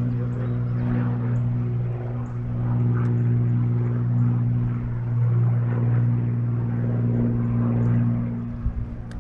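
A boat motor running steadily with an even hum, which drops off near the end.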